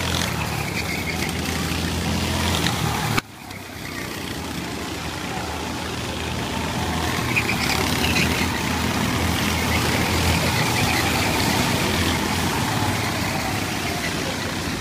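Rental kart engines racing, several karts running together with engine notes rising and falling as they pass. The sound cuts off abruptly about three seconds in, then builds again as the pack comes round.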